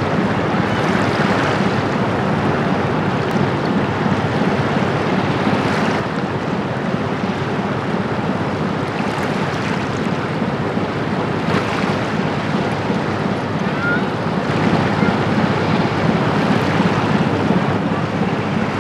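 Steady rushing of wind on the microphone and river water running over stones, with the low drone of a passing Rhine cargo ship's diesel engine underneath.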